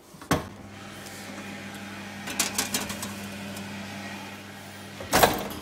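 Commercial convection oven: a sharp clack at the door handle, then the oven's fan hums steadily, with a few light metal clicks midway and a loud clunk of the door near the end.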